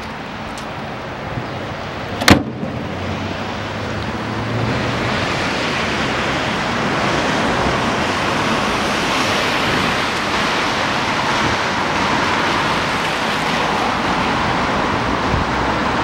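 A single sharp bang about two seconds in, as the Jaguar Mark 2's bonnet is shut, then a steady rushing noise that grows louder from about four seconds in.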